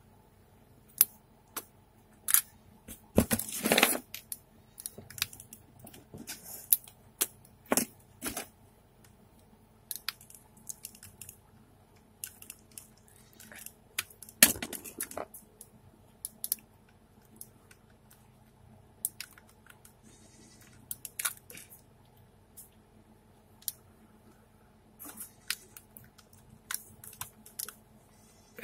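Scattered plastic clicks and scrapes as a pin is worked into the release hole of a slim laptop DVD drive and its front bezel is pried at, with the thin metal drive case handled between them. The loudest clatter comes about three to four seconds in and again about halfway through.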